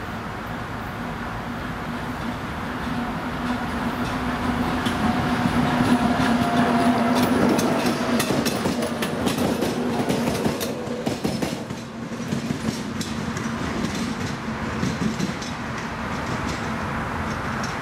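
Diesel locomotive approaching and passing close by. Its engine drone swells to a peak about halfway through, then gives way to a clatter of wheels over the rail joints, which fades.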